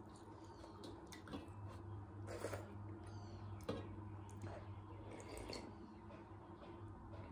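Close-up eating sounds: wet finger-licking and mouth smacks with scattered clicks, then a bowl of chicken soup sipped and slurped from about four seconds in. A brief high squeak comes a little before the slurping.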